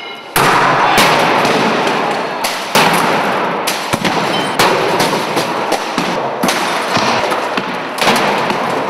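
Old household appliances such as washing machines being smashed with poles and other heavy tools: about a dozen loud, irregular metal bangs and crashes, with clattering between them.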